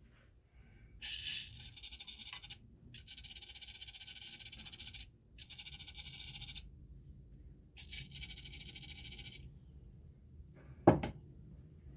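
Aerosol can of penetrating oil sprayed through its thin straw onto rusted nuts and bolts, in four hissing bursts of one to two seconds each. A single sharp metallic knock comes near the end.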